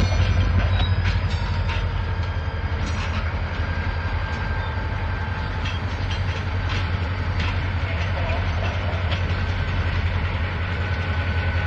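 Norfolk Southern diesel-electric locomotives rolling slowly during yard switching: a steady low engine rumble with scattered clicks and clanks from the wheels on the rails, and a faint thin high tone in the middle.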